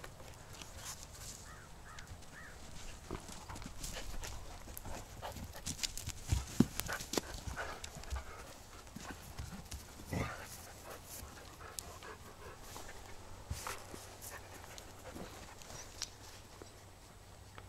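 Dogs panting and scuffling at a wire-mesh fence, with short knocks and thumps, the loudest about six and a half and ten seconds in.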